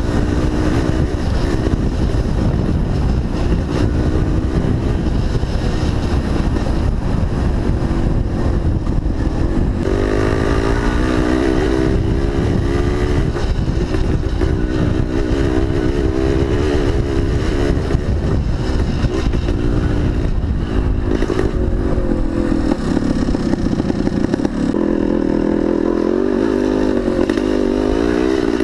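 1975 Yamaha DT400B's single-cylinder two-stroke engine running under way on a dirt track, its pitch rising and falling with the throttle, over a heavy low rumble.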